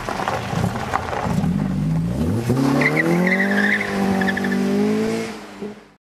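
Opel Ascona 400's four-cylinder engine running, then revving up about two seconds in and holding at higher revs before fading out near the end.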